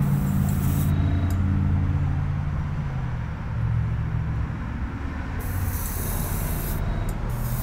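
Small air compressor running with a steady hum while an airbrush sprays paint in hissing bursts: one at the start, another about five and a half seconds in, and a third near the end.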